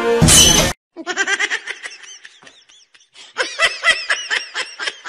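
A music sting ends with a loud noisy hit, then about a second in comes high-pitched, rapid giggling laughter in quick pulses that slow toward the end.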